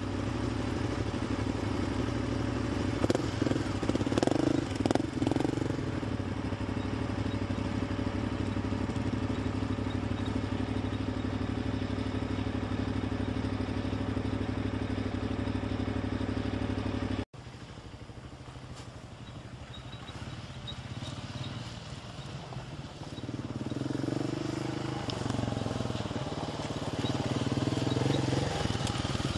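Motorcycle engine running steadily at idle, with a few short revs a few seconds in. After an abrupt cut partway through, a quieter motorcycle engine is heard approaching on a gravel track, its pitch rising and falling and growing louder near the end.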